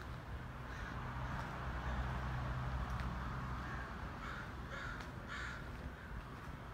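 A bird cawing: faint caws early, then three louder caws in quick succession about two thirds of the way through, over a low steady rumble.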